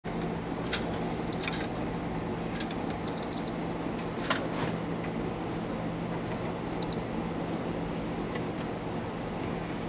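PlayStation 3 console beeps: a single beep about a second in, three quick beeps about two seconds later, and another single beep near seven seconds, over a steady low hum and a few faint clicks. The three quick beeps are the PS3's error shutdown, here a 2-second yellow light of death, which points to a GPU or CPU fault.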